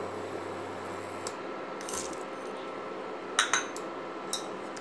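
A few light clinks and taps on a metal pan as lumps of jaggery are dropped into cooked chana dal, over a steady faint hiss. The sharpest tap comes a little past halfway.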